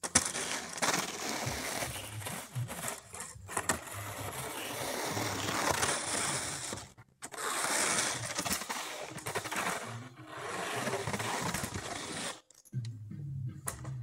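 Snow being pushed and scraped off the roof of a pop-up camper in long strokes, with a short break about halfway through. Background music comes in near the end.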